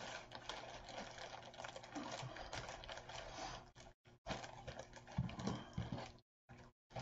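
Crackly rustling of a bunch of artificial flower and greenery stems handled and sorted in the hands, many small clicks and crinkles. The sound cuts out briefly twice in the second half.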